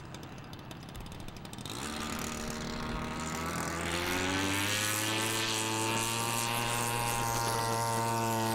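Model seaplane's pylon-mounted engine and propeller running up for a takeoff roll. It starts as a rushing noise, then about two seconds in the engine note rises in pitch and settles into a steady high note for the rest of the roll.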